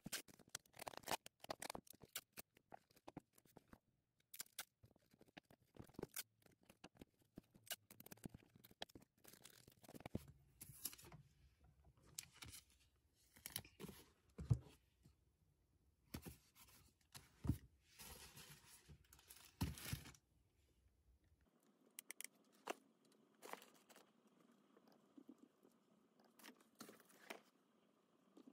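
Faint packing sounds: clear packing tape being pulled and torn and a cardboard box being handled, a quick run of short rips, scrapes and knocks. After about twenty seconds it turns quieter, with only a few scattered clicks.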